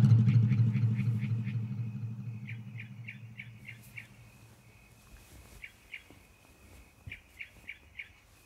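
A low rumbling drone fades away over the first few seconds, then a bird chirps in short runs of quick notes with pauses between.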